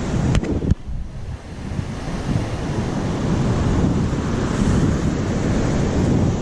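Surf washing on a beach, with wind buffeting the microphone in a heavy low rumble. Two short clicks come in the first second.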